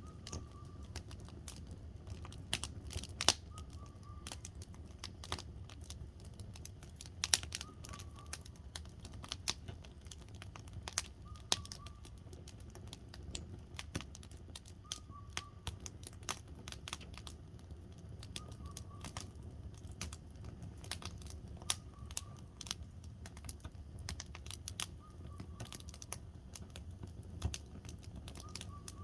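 Firewood burning in a campfire, crackling and popping irregularly with sharp snaps over the low, steady rumble of the flames.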